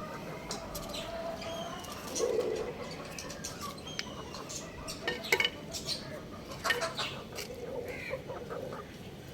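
Young rooster clucking and chirping: thin falling peeps through the first half, a low cluck about two seconds in and more soft clucks near the end. A few sharp taps come through the middle.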